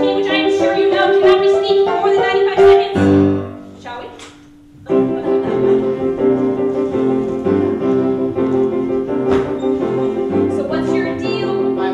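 Piano accompaniment to a stage musical, playing sustained chords with a repeated middle note. It breaks off briefly about three and a half seconds in, then resumes.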